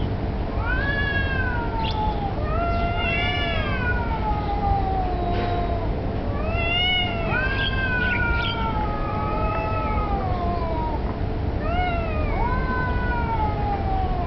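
Two stray cats yowling at each other in long, drawn-out, wavering howls that rise and fall in pitch, the calls sometimes overlapping, over a steady low background rumble. This is caterwauling of the kind cats make in a territorial standoff or in mating; the uploader is unsure which.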